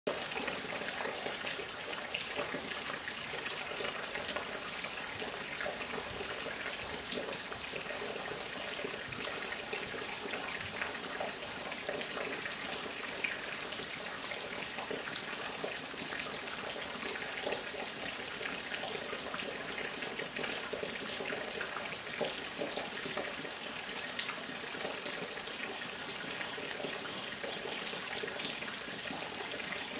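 Fine, steady rain with water dripping from a roof: an even hiss dotted with many small drop ticks.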